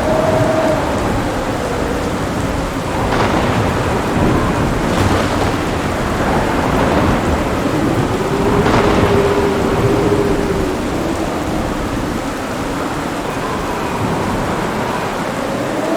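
Thunderstorm: heavy rain pouring steadily while thunder rumbles and rolls, swelling a few times.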